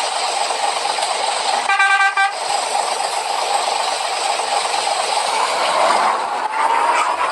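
A bus's air horn gives one short blast about two seconds in, over a steady rushing noise. Near the end a tone slowly rises in pitch.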